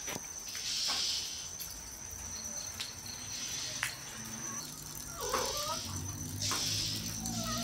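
A steady, high-pitched insect drone of crickets, with a few soft clicks. A mother cat gives a short meow about five seconds in and another near the end, calling her kitten.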